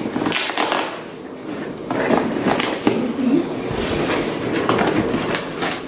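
Cardboard and paper packaging being torn and rustled open by hand: an uneven run of crackles, rips and scrapes.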